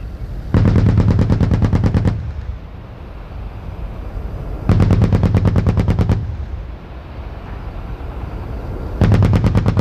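Type 87 self-propelled anti-aircraft gun's twin 35 mm autocannons firing three short rapid bursts, each about a second and a half long, with rumbling echo between them.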